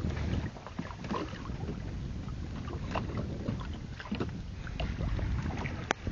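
Wind on the microphone and water moving around a small fishing boat at sea, with scattered knocks and clicks on board and one sharp click near the end.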